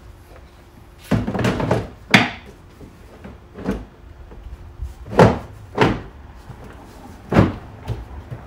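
Hollow plastic clunks and knocks from a truck-bed storage drawer as gear is set in and a lid is handled, about six separate knocks with pauses between.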